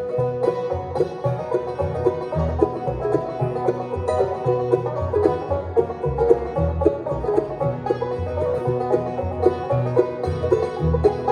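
Bluegrass instrumental break: a banjo picking fast rolls over guitar and a string bass.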